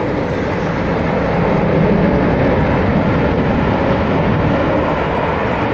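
Belgian F-16A MLU jet fighter's single engine heard from the ground as a steady, loud jet roar that swells slightly about two seconds in.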